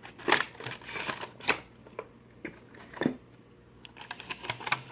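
A flashlight's retail box being opened by hand: irregular light clicks, taps and short rustles of the box and packaging, a few sharper snaps among them.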